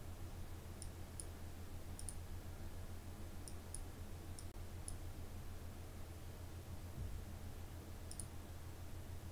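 Computer mouse clicking in short single and double clicks, scattered through the first five seconds and again about eight seconds in, over a steady low hum.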